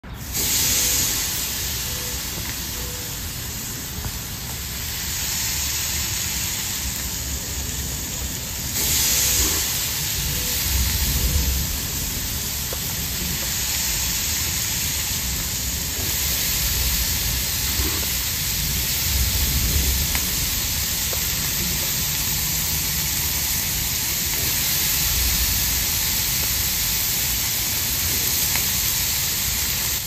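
Skewers of meat and vegetables sizzling on a hot gas grill: a steady hiss, with occasional low rumbles.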